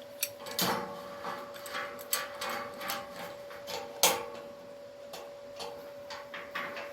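Irregular metallic clicks and knocks as steel parts are positioned and a clamp is fitted and tightened, with the sharpest knock about four seconds in. A steady hum runs underneath.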